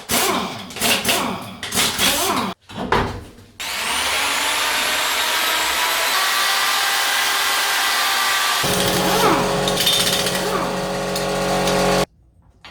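A power tool running steadily for about eight seconds with a high, hissing whir, then cutting off abruptly. Before it come a couple of seconds of short, irregular clattering sounds.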